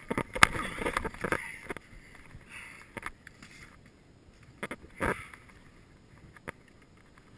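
Knocks, scuffs and thumps of a person moving about and settling on a wooden plank deck, with gear bumping against the boards. There is a dense run of knocks in the first two seconds, then a few separate thumps.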